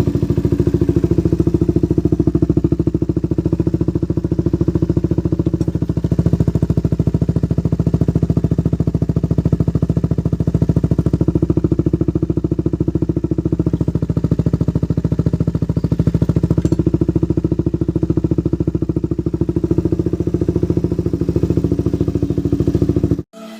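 Motorcycle engine idling steadily through an Akrapovic dual-outlet exhaust with its dB killer removed, giving an open, unbaffled exhaust note. It cuts off suddenly just before the end.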